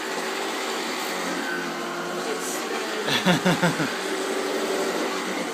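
Small vacuum cleaner motor running with a steady hum. About three seconds in, a short burst of sharp vocal sounds cuts across it.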